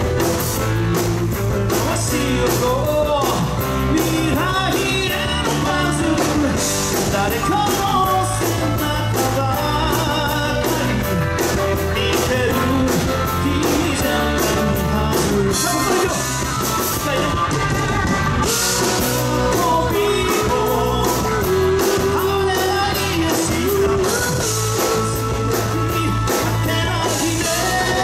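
Rock band playing live with a lead singer: a vocal line over a steady drum beat, bass and guitar.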